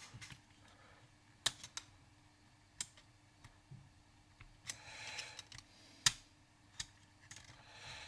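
Scattered sharp clicks and taps of small plastic and metal parts as a 3½-inch floppy drive mechanism is pried and levered apart by hand, with a brief scraping rustle about five seconds in.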